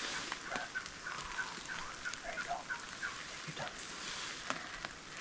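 Wild turkeys calling: a steady run of short, high notes, about three a second, with a few lower chirps and faint ticks among them.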